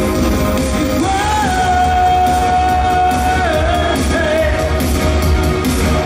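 Live synth-pop song over a venue PA: keyboards over a heavy electronic low end, with a long high note held from about a second in that dips down and wavers past the middle.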